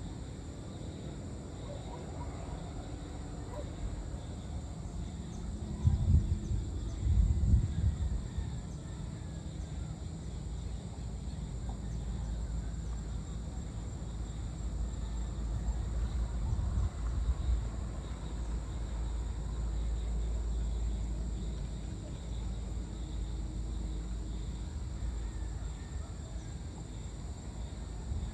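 Outdoor evening ambience: a steady high-pitched insect drone over a low rumble. The rumble swells in a few louder pulses about six to eight seconds in.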